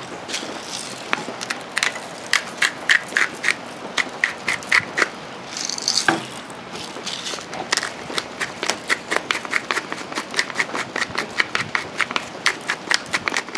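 Hand-twisted salt and pepper grinders cracking salt and peppercorns, a rapid run of crunchy clicks at about five a second, in two spells. About six seconds in, a single knock as a grinder is set down on the wooden table.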